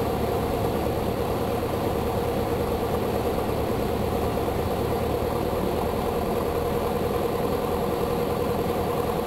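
Steady drone of a Beechcraft Sundowner's piston engine and propeller, heard inside the cockpit on final approach, with an even, unchanging pitch.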